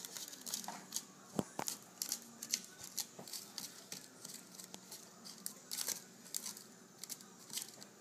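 Small plastic spoon scraping and clicking against a plastic tray, stirring powdered frosting mix and water into a paste, in quick irregular strokes.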